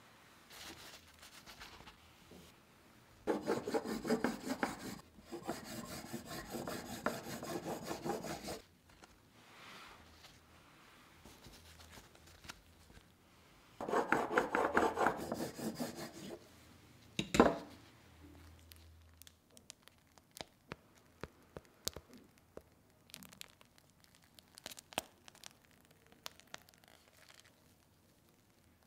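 Serrated blade of a cake leveler sawing back and forth through a chocolate sponge cake layer against a wooden board, in two bursts of quick strokes. A sharp knock follows the second burst, then faint scattered ticks.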